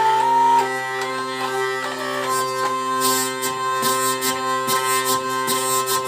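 A luthier-made drone instrument playing a melody over a steady, unchanging drone. A rhythmic rasping or buzzing layer joins about halfway in.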